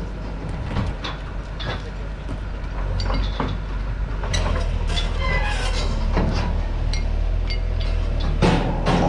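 JCB JS220 tracked excavator's diesel engine running steadily, pulling harder from about four seconds in as it lifts a roof under load. Scattered clanks and creaks come from the roof's steel frame as it swings.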